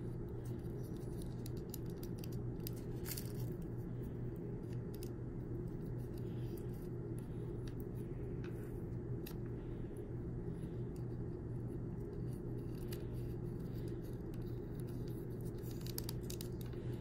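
Bamboo pieces of a six-piece knot puzzle clicking and scraping lightly against each other as they are turned and slid by hand: a few scattered light clicks, a small cluster of them near the end, over a steady low hum.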